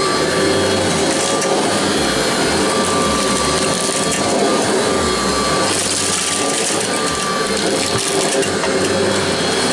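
Vintage Kirby Heritage upright vacuum cleaner running steadily: its motor whines at a few fixed pitches over the rush of air, with the rotating beater bar brushing the carpet.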